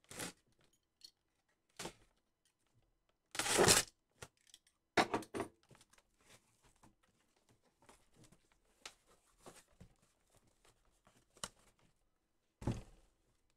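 Packing tape tearing and cardboard rustling as a cardboard shipping case is opened, in several short rough bursts, the loudest about three and a half seconds in. Near the end the case gives a dull cardboard thump as it is lifted.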